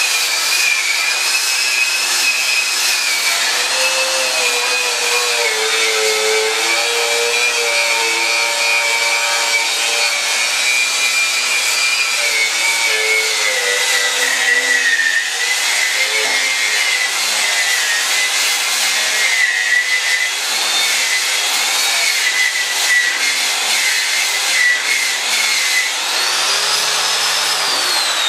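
Die grinder with a wire-wheel head running at high speed, scouring rust off a steel mower deck: a loud, high whine over a rough scratching hiss, the pitch dipping each time the wheel is pressed into the metal and picking up again, with a brief rise and fall in pitch near the end.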